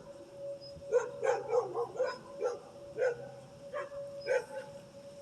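A dog barking repeatedly in short barks, about two a second, starting about a second in.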